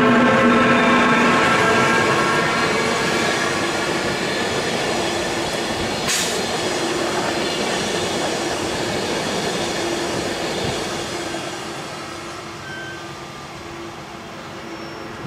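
Glacier Express, an electric narrow-gauge Matterhorn Gotthard Bahn train, rolling past close by. It is loudest at the start and fades as the last coaches go by, with one sharp click about six seconds in.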